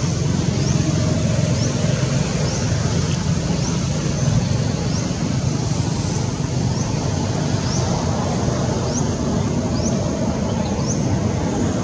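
Steady outdoor background rumble, with a short, high, rising chirp repeating roughly once a second.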